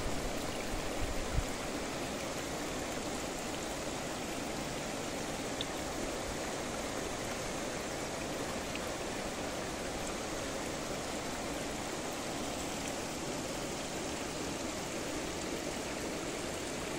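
Steady, even rush of a flood-swollen hill stream of muddy water. There is a small bump about a second and a half in.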